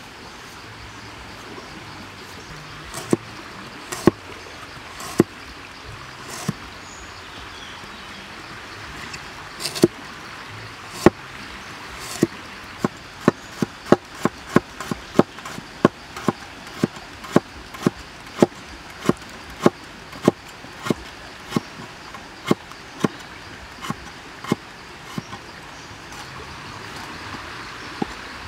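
Heavy cleaver chopping vegetables on a wooden cutting board: a few scattered knocks at first, then about halfway through a steady run of chops, roughly one and a half a second, that stops near the end. Steady background hiss throughout.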